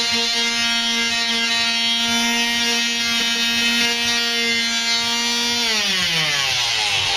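Electric power sander running steadily on a pinball machine's side rail, then switched off about 5.5 seconds in, its motor pitch falling as it winds down.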